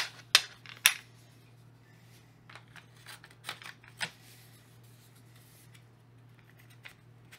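Clamp latches on a Garrett Axiom metal detector's carbon-fibre shaft snapping open, three sharp clicks in the first second, then softer clicks and rubbing as the shaft sections slide out to full length.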